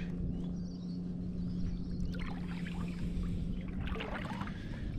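Shallow water splashing and trickling around a hand held in the water, starting about two seconds in, over a steady low hum.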